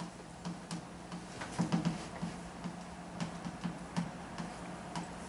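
Chalk writing on a blackboard: a string of irregular sharp taps and clicks as the chalk strikes and lifts, busiest around a second and a half to two seconds in, over a steady low hum.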